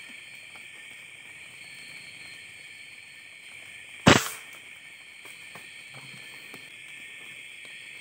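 A single rifle shot about four seconds in, a sharp crack that dies away quickly. Under it runs a steady high chorus of crickets and other night insects.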